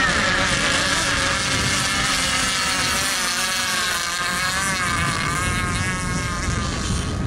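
Radio-controlled racing boats' small engines running at high revs, a high whine whose pitch wavers up and down as the boats turn and run past.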